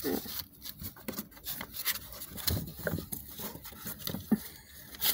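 Kittens scuffling and play-fighting on cardboard: a run of irregular scratching and rubbing strokes as their claws and bodies scrape across the box floor.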